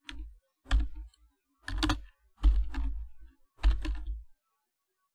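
Computer keyboard typing in five short bursts of keystrokes, stopping about four seconds in: short terminal commands being entered.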